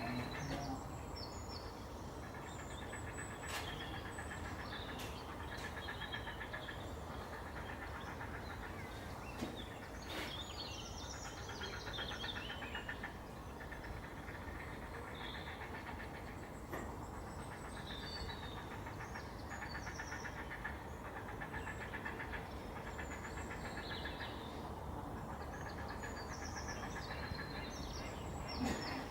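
Small birds chirping and calling in short scattered notes over a steady low background rumble.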